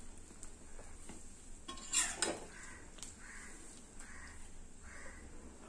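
Metal spoon clinking and scraping against a stainless steel pot as chicken masala is spooned onto the rice for biryani layering. There is one sharp clink about two seconds in, followed by a few soft scrapes roughly a second apart.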